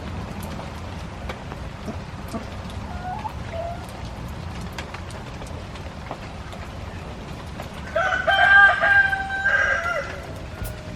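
Rooster crowing loudly once, about eight seconds in, with a few faint chicken clucks earlier.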